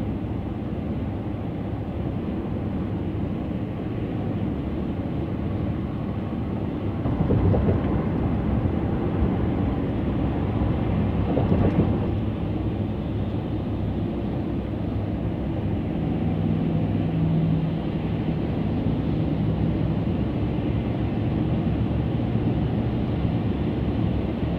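Steady road noise inside a car cruising on a freeway: tyre rumble and engine hum. It grows louder for a few seconds starting about seven seconds in, and a low steady hum joins it briefly about two-thirds of the way through.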